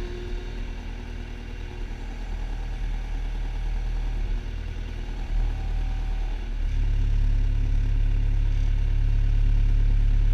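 Skid steer loader engine running, heard from inside its cab, getting louder and steadier about two-thirds of the way through.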